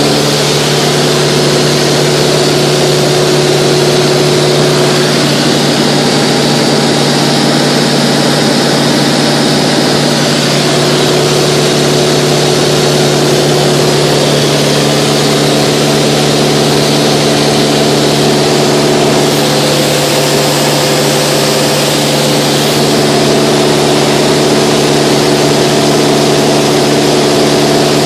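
Mooney 201's four-cylinder Lycoming IO-360 engine and propeller droning steadily at cruise power, heard from inside the cabin together with the rush of air over the airframe.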